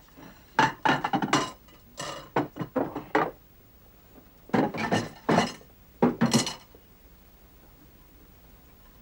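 Dinner plates and cutlery clinking and clattering as they are gathered up from a table, in four short bursts of clatter, stopping about two seconds before the end.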